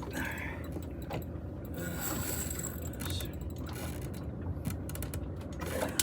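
Scattered light clicks and knocks of fishing tackle being handled aboard a small boat, over a steady low rumble of wind and water.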